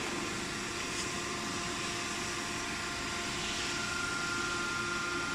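Steady hum of running duct-line machinery, a few even tones over a constant noise, with a faint tick about a second in.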